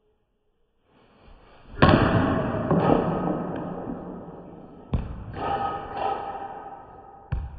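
A bat cracking a baseball off a batting tee about two seconds in, followed by the ball coming back from the net and bouncing on the concrete floor in a few separate thuds that fade.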